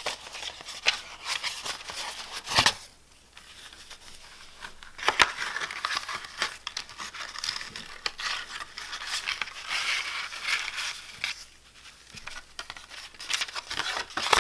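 Paper rustling and crinkling as a notebook insert is handled and fitted, with many small clicks and a few sharper knocks.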